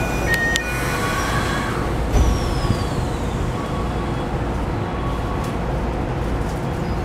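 Keikyu New 1000 series electric train with a Toyo hybrid SiC VVVF inverter pulling away and accelerating, heard inside the car: thin, high inverter whines that shift in pitch over a steady low running rumble, with a low jolt about two seconds in.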